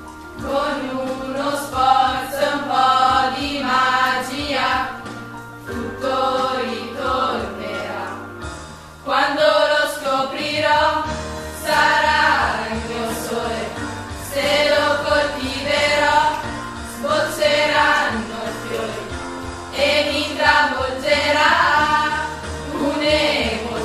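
A group of voices singing a song together over instrumental accompaniment, in phrases of a second or two with held low notes underneath.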